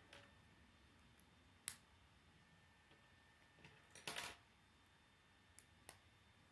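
Plastic K'nex pieces clicking as they are snapped together. There is a single sharp click, then a louder cluster of snaps about four seconds in, and two small clicks near the end.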